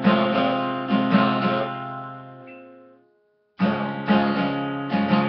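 Acoustic guitar, capo on the first fret, strummed in a down, down, up, up, down, up pattern. The first chord rings out and fades to silence about three seconds in, then a new chord is strummed in the same pattern.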